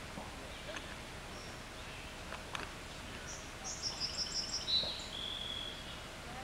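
A songbird sings one short phrase of rapid high notes that steps down in pitch about halfway through, over steady outdoor background noise with a few faint clicks.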